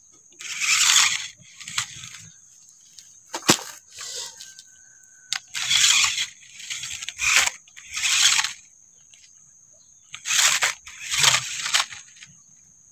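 Small electric toy RC off-road buggy's motor and gears whirring in short throttle bursts, about eight in all, as it drives over dirt and climbs a log, with one sharp knock about three and a half seconds in. A faint steady high-pitched tone runs underneath.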